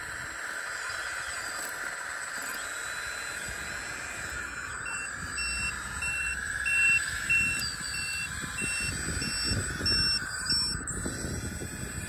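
Radio-controlled scale Volvo L260H wheel loader running with a steady hum. From about five seconds in, a reversing beeper sounds about twice a second for some five seconds while the model backs up. Near the end, tyres crunch over gravel and dirt.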